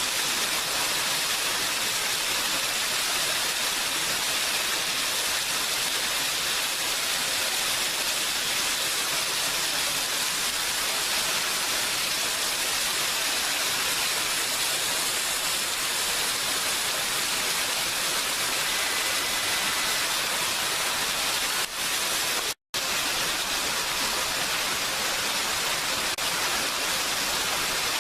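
Steady rain falling, an even unbroken hiss, which cuts out for a split second about three-quarters of the way through.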